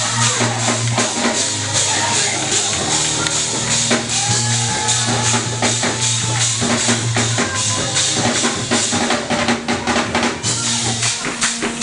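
Live gospel band playing an up-tempo praise break: fast, driving drums and cymbals with tambourine over held low notes.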